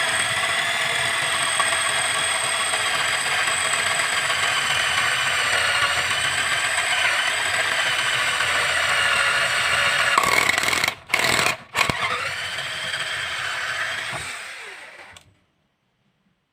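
National 7.2 V cordless drill running at full speed, its motor giving a steady high whine while powered by a rebuilt battery pack. About eleven seconds in it cuts out twice and restarts, then winds down and stops about fifteen seconds in.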